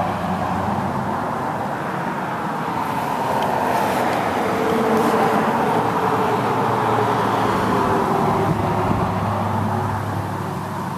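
Steady background rumble of road traffic, swelling about halfway through and easing near the end.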